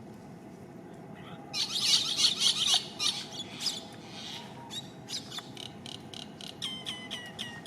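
Shrill, high-pitched animal calls: a dense burst of squeals about a second and a half in, then a quick run of short, evenly repeated chirps near the end, about four a second.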